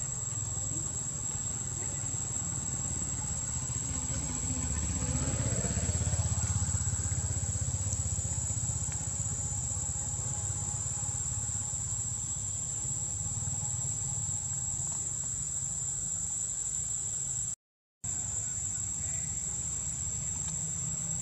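Steady high-pitched drone of insects over a low rumble that swells for a few seconds about five seconds in; the sound cuts out for a moment near the end.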